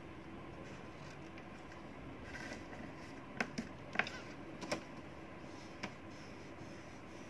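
Drawing materials being handled on a tabletop: a brief soft scratching, then a few sharp light clicks and taps between about three and six seconds in, as oil pastels and a marker are picked up and set down.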